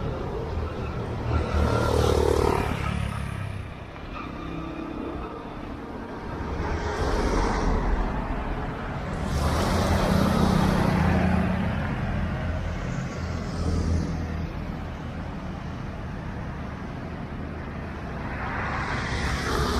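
Road traffic: vehicles passing one at a time on an open road, each swelling and fading away, about five in all, with quieter gaps between.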